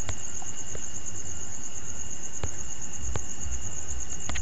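Steady high-pitched insect trill, evenly pulsed and unbroken, with three faint clicks in the second half.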